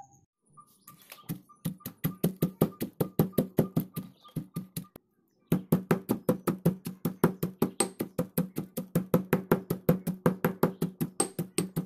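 Stone pestle pounding in a granite mortar, steady knocks about four a second, crushing chilies, shallots and garlic into curry paste. The pounding stops briefly about five seconds in, then carries on.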